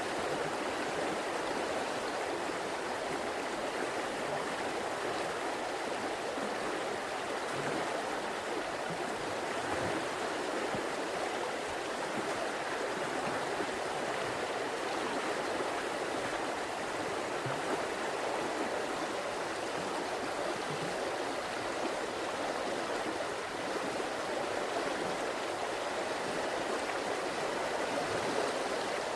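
River water flowing over stones, a steady rushing and gurgling without a break.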